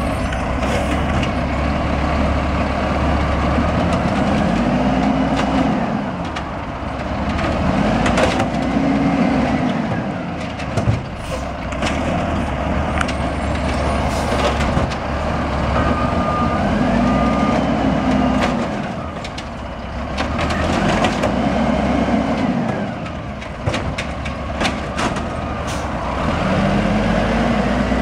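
Automated side-loader garbage truck working curbside carts: the diesel engine revs up and falls back about five times as the hydraulic arm cycles, with scattered clanks and knocks of carts and arm.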